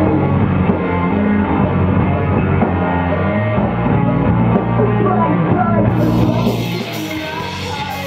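Rock music with a singer. About six seconds in the sound changes to a fuller, clearer recording of a live rock band with a singer.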